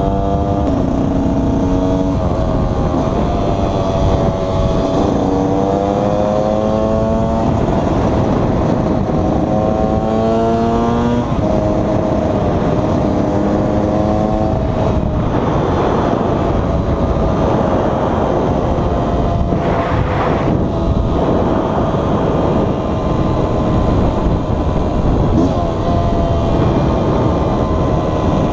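KTM 125 EXC two-stroke single-cylinder engine under way, its pitch climbing again and again as it accelerates and drops at each upshift through the first dozen seconds, then settling into a steadier note that slowly falls.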